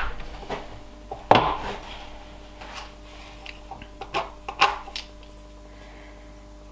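A few light knocks and clatters of wood and tools being handled on a workbench, the sharpest about a second in and two more close together near the middle, over a faint steady hum.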